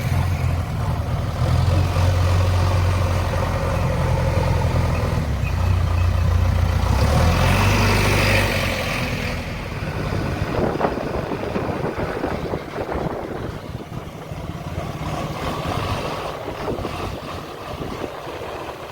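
JCB backhoe loader's diesel engine running with a steady low hum. A little before the middle the steady hum drops away, and a rougher, noisier engine rumble carries on.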